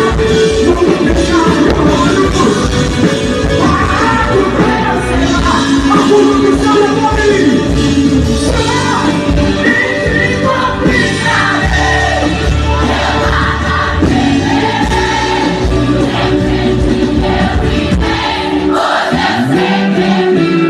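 Live Brazilian gospel music: a male singer with a band of keyboards and electric guitar, played loud through a concert sound system.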